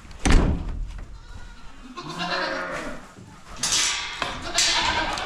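A thump about a second in, then a goat bleating several times.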